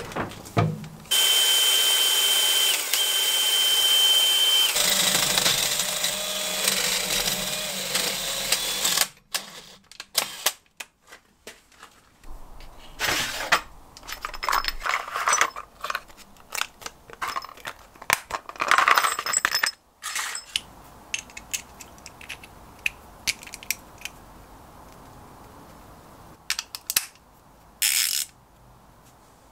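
Cordless drill running steadily as it bores into the cast iron bed of a metal lathe for about eight seconds, its sound changing about halfway through. After it stops, scattered clicks and rattles of small plastic parts boxes and parts being handled.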